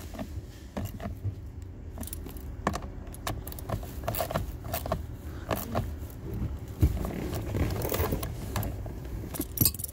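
Scattered, irregular clicks and taps of hands and a tool working up under a car's dashboard, fastening the bolts of a replacement blower motor, with a louder knock about seven seconds in.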